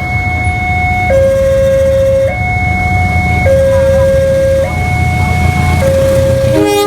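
Railway level-crossing warning siren sounding a two-tone alternation, a higher and a lower tone each held for about a second, with a trembling, distorted quality. It sounds over a low rumble of engines, and a short horn honk comes near the end.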